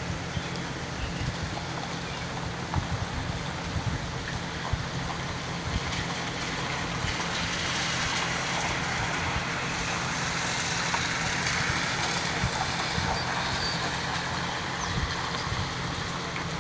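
Steady hiss of rainfall and storm runoff water, swelling louder for several seconds midway before easing.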